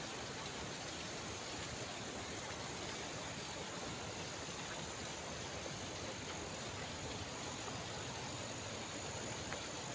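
Shallow stream flowing over rocks: a steady, even rushing of water.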